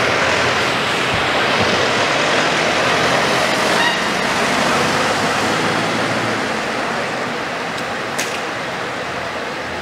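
Heavy-haulage convoy, a Scania S 730 tractor unit pulling a low-loader with its escort vehicles, driving away. The engine and tyre noise is steady and slowly fades.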